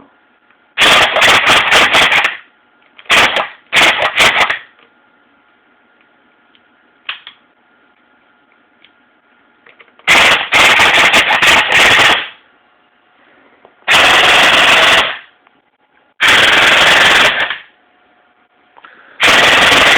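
Airsoft electric gun (AEG) firing on full auto in loud bursts of rapid shots, seven of them, each from under a second to about two seconds long, with short pauses between.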